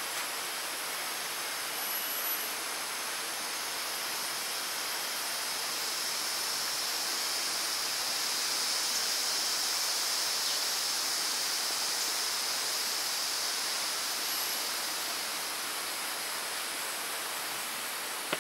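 Steady forest ambience: an even hiss with a high drone that grows louder in the middle and fades again.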